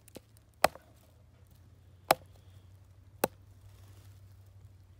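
Knife chopping squirrel meat on a wooden log: three sharp chops over about three seconds, with a lighter tap just before the first.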